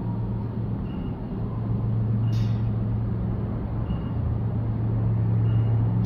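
Diesel engine of a GO Transit commuter train running steadily with a deep, even hum. There is a short burst of air hiss about two seconds in and another near the end.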